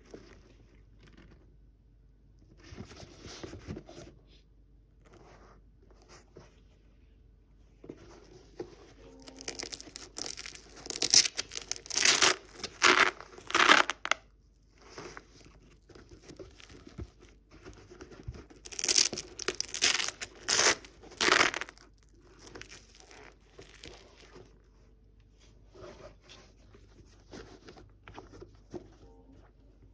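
Paper being crinkled and torn during a sneaker unboxing, in two loud bouts with quieter rustling between them.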